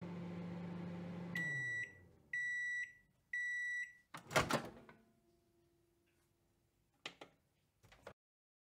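Microwave oven running with a steady hum that winds down as it finishes, then three long beeps about a second apart signalling the end of cooking, followed by a loud clunk and a couple of lighter clicks near the end.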